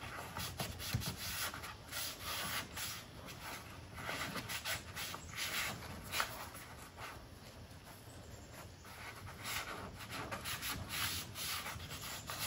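Faint, irregular scrubbing strokes of a cloth-covered ceramic-coating applicator rubbed back and forth over a matte plastic honeycomb car grille, working the coating in.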